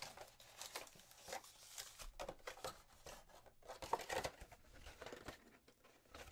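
A cardboard 2015-16 Panini Select basketball hobby box being opened by hand and its foil card packs pulled out and set down on a mat. The sound is quiet, scattered cardboard tearing and foil-wrapper rustling with light taps.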